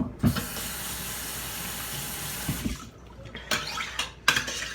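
Water running from a tap for about two and a half seconds as a slime-covered spoon is rinsed, then stops; a few sharp clinks of the metal spoon follow near the end.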